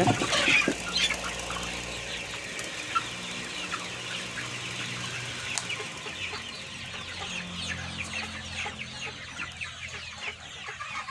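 A flock of grown kampung super chickens clucking and chirping continuously, many short overlapping calls, over a faint steady low hum from an electric fan in the coop.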